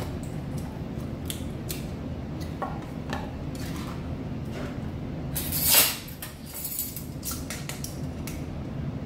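A baking powder container being opened and measured from: a run of light clicks and taps from its lid and a measuring spoon, with one louder scraping sound of about half a second about two-thirds of the way through.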